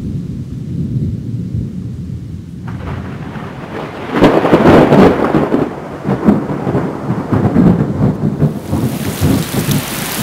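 Thunderstorm sound effect: thunder rumbles, rain comes in about a quarter of the way through, a loud thunderclap falls near the middle followed by further rumbles, and the rain hiss grows toward the end.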